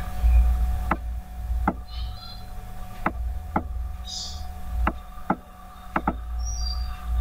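Computer mouse clicking about eight times at uneven intervals, two clicks in quick succession near the end, over a steady low hum.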